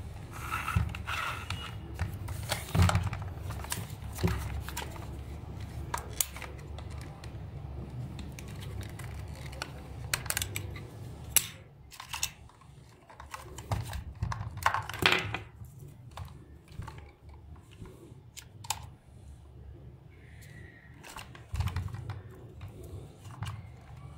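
Hard plastic parts of a toy remote-control tractor being handled: irregular clicks, taps and knocks as the toy is turned over and small parts are pressed and fitted, with a sharp louder click near the middle.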